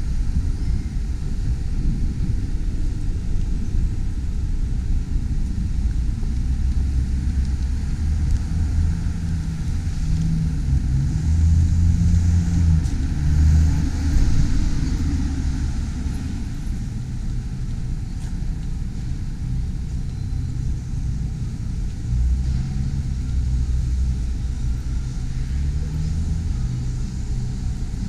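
Street traffic: a steady low rumble, with the engine of a passing car rising twice, around the middle and again near the end.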